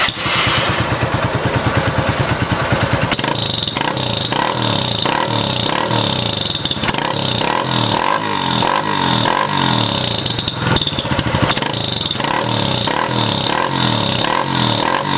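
Small single-cylinder motorcycle engine, a Honda Titan, running through a Roncar ML Competition sport exhaust fitted with the short 40 cm tip, which gives a louder note than the long tip. It idles with an even beat for about three seconds, then is revved up and let back down over and over, with a whistle-like tone coming and going.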